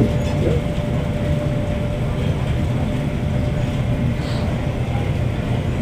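Steady low rumble of airport ambience, with a faint steady whine that fades out about two seconds in.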